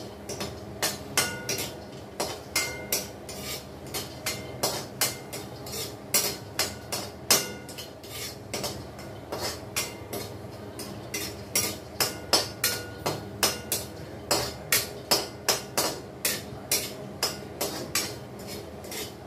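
A metal spoon knocking and scraping against a metal pan while cashews and almonds are stirred and roasted in ghee. The knocks come about two or three a second, some with a short metallic ring.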